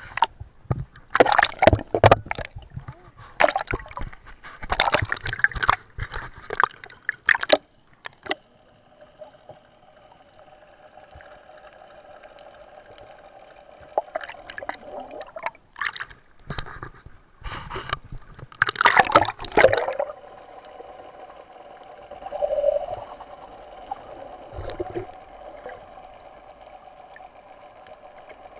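Sea water splashing and gurgling around a boat's outrigger, in irregular bursts during the first eight seconds and again from about fourteen to twenty seconds in. From about eight seconds in, a steady hum runs underneath.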